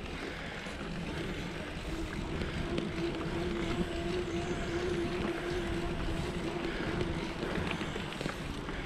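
Wind rushing over the microphone of a bicycle-mounted action camera, with tyres rolling on asphalt, while riding a paved trail. A steady, faint hum-like tone joins in about two and a half seconds in and fades out about seven and a half seconds in.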